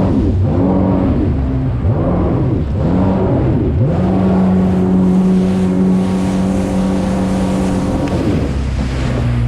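Jet ski engine revving up and down several times in quick succession, then held at a steady high pitch for about four seconds before dropping off near the end.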